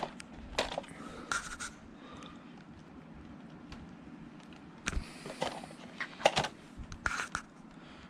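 Scattered rustles and light knocks of a handheld camera being moved about on a wooden deck, in two clusters, about a second in and again from about five seconds, over a faint steady low background noise.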